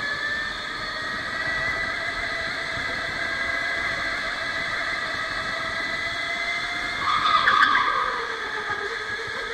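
Electric go-kart motor whining under way, its pitch rising and falling gently with speed. About seven seconds in, a brief, louder screech of tyre squeal cuts in.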